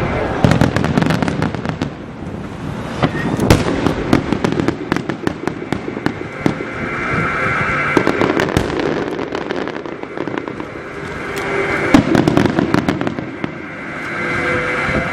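Aerial fireworks going off in a rapid, dense barrage of bangs and crackles, with the loudest bangs about three and a half seconds and twelve seconds in.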